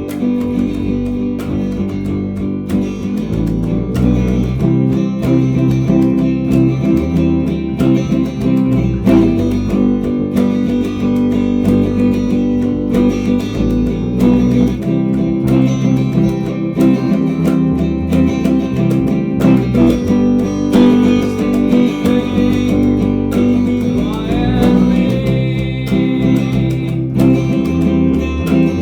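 A band playing a song live, led by guitars over bass, with regular sharp hits keeping the beat.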